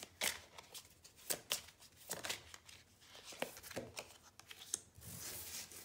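A deck of oracle cards being cut and handled and a card drawn from it: a string of short card snaps and taps, with a longer sliding rustle about five seconds in.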